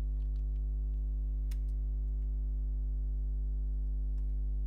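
Steady electrical mains hum, a low buzz with a stack of even overtones, with a few single key clicks from a computer keyboard, the clearest about a second and a half in.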